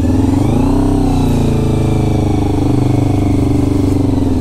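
1992 Honda VFR750's V4 engine pulling the bike along at low speed, the revs rising over the first second and then holding nearly steady.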